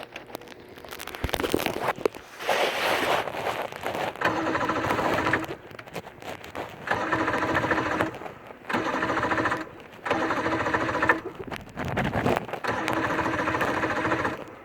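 Electric starter of a 115 hp Johnson outboard whirring in six short bursts as the key is turned again and again, each at a steady even pitch; the engine never fires, and the owner says it is not turning.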